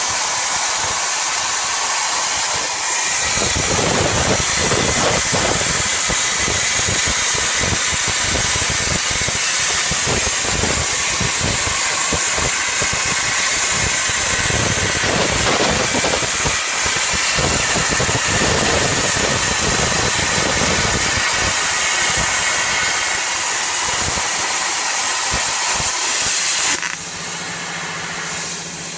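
CNC plasma cutting torch cutting steel plate: the plasma arc gives a loud, steady hiss, with a rough crackle underneath from about three seconds in. Near the end the arc shuts off at the end of the cut, and the hiss gives way to a lower steady hum.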